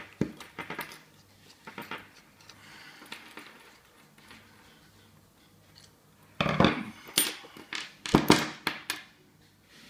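Metal clicks, clinks and rattles of an American Series 30 padlock and small tools being handled as the lock is taken apart. A few light clicks come early, then a dense run of louder clinks from about six and a half to nine seconds in.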